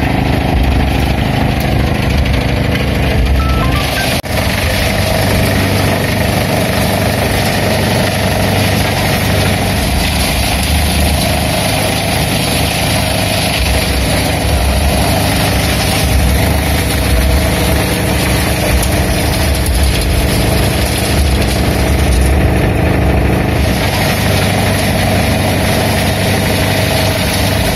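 Tractor's diesel engine running steadily while driving a wood chipper whose chute blows into a tarp-covered trailer, with a brief dip in the sound about four seconds in.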